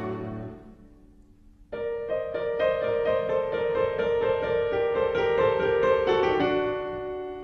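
Background music. One piece fades out in the first second, then after a short pause a piano melody of evenly repeated notes begins and runs until it fades near the end.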